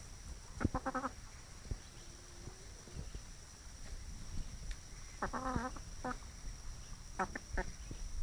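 Barred hen clucking softly as she forages, in short runs of low notes: one run about a second in, another around five seconds in, and a last one near the end.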